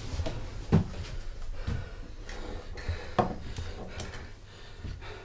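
A series of light knocks and clatters of a glass jar and other kitchen objects being handled and set down on a worktop. The loudest knocks come just under a second in and again a little past three seconds.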